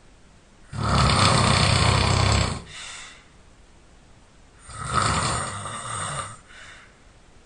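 A person snoring loudly: two snores about four seconds apart, each lasting about two seconds and followed by a short, quieter breath.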